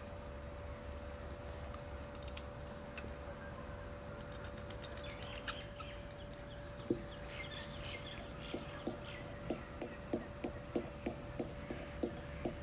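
Screwdriver turning the idle speed screw into a Solex 34 PICT-3 carburettor body: a few scattered small clicks and faint scraping, then a run of light ticks about two to three a second over the last four seconds as the screw is turned, under a faint steady hum.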